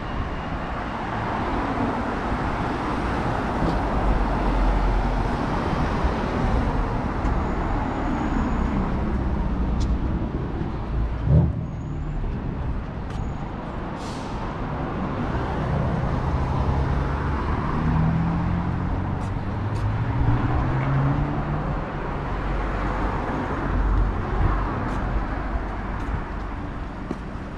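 Road traffic passing: a continuous wash of vehicle engine and tyre noise with low rumble, one engine note rising in pitch as a vehicle goes by about two-thirds of the way through. A single sharp knock sounds a little before halfway.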